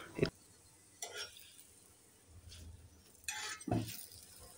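Sparse, quiet kitchen handling sounds: a few light clinks and scrapes of a utensil against a cast-iron tawa, with a soft knock near the end as a paratha is turned over.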